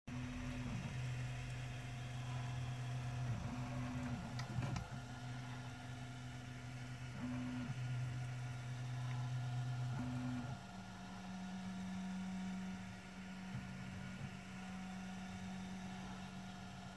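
Prusa 3D printer's stepper motors humming as the printer runs, with steady low tones that shift in pitch every few seconds as the moves change, and a lasting pitch change about ten seconds in.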